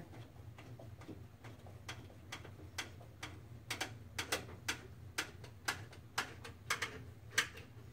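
Hand screwdriver turning a screw into a pre-drilled hole in a particleboard desk panel: a run of light clicks, about two or three a second, starting about two seconds in.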